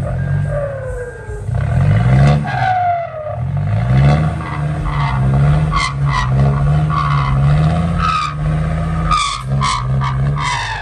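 Diesel engine of a loaded six-wheel dump truck revving up and down over and over as it struggles for grip in slippery mud.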